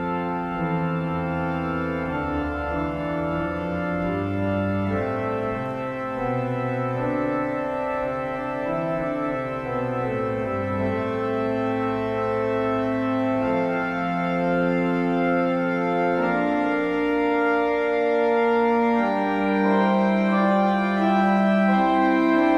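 Organ playing a slow passage of held chords that change every second or two, growing a little louder in the second half.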